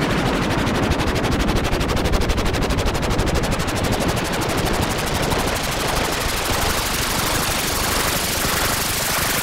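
Machine gun firing in one long unbroken burst of rapid, evenly spaced shots.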